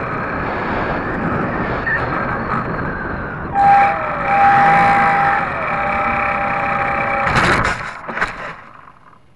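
Onboard sound of a HobbyZone Super Cub RC plane in flight: its electric motor and propeller whining over wind rush, the whine shifting in pitch. About seven seconds in come several hard knocks as the plane hits the grass, and then the motor cuts off.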